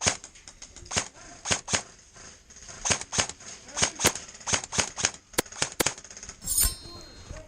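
Airsoft guns firing single shots in quick, irregular succession, each a sharp crack, some in close pairs. A short noisy burst with a low thump comes about six and a half seconds in.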